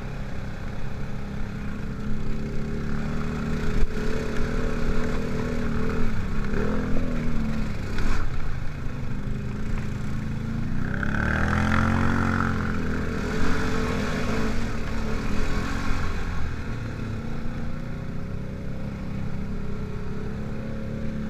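ATV engine running under way on a dirt trail, its note holding steady, then rising as it speeds up and falling back about halfway through.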